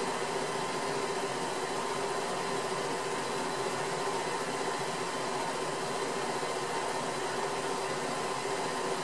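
Steady whirring hiss with a constant hum, unchanging throughout, with no separate sounds.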